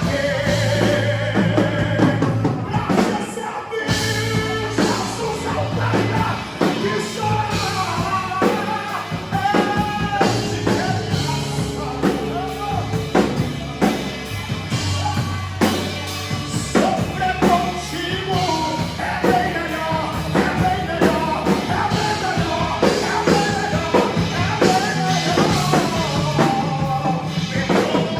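Live band music with drum kit, bass and a sung melody line: a gospel worship song played in rock style.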